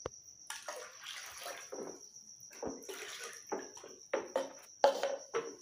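Alcohol poured from a small cup into a plastic bucket of lye solution, then a wooden spoon stirring and sloshing the liquid, with a few sharper knocks near the end.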